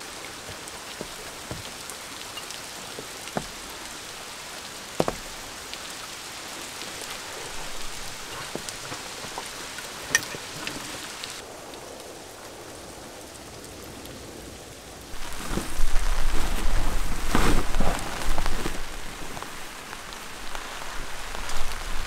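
Rain pattering down in a steady hiss, with single drops ticking now and then. About fifteen seconds in it turns much louder and gustier, with a low rumble underneath.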